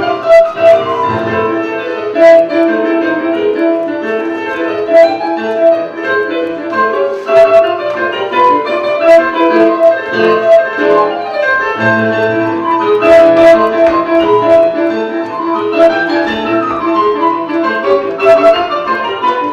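Instrumental keyboard music, piano-like, playing a steady run of sustained notes and chords.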